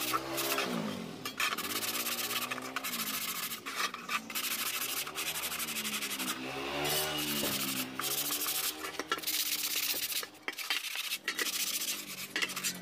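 Sandpaper rubbed back and forth by hand over a sheet-metal cover, a steady rasping scratch broken by short pauses between strokes. The cover is being sanded smooth to prepare it for spray painting.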